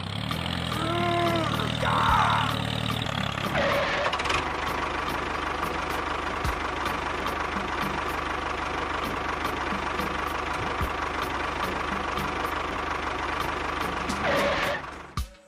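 A vehicle engine running steadily. A short arching tone sounds about a second in, and the engine cuts off shortly before the end.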